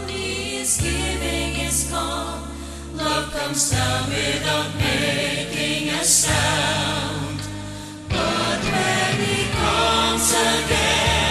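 Mixed men's and women's choir singing a gospel song in harmony over instrumental accompaniment with steady bass notes. The sound thins and fades a little before coming back in fuller about eight seconds in.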